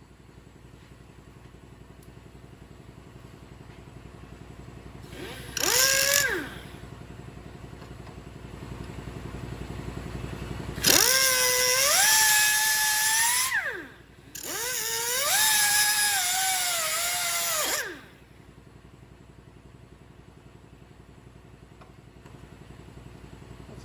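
A handheld power grinder on steel, run in three bursts: a short one, then two longer ones of about three seconds, each spinning up to a high whine with a hiss and sagging in pitch as it is pressed into the metal.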